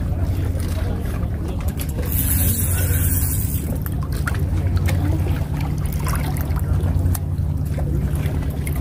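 A steady low engine drone runs throughout, with light scattered clicks and faint voices over it.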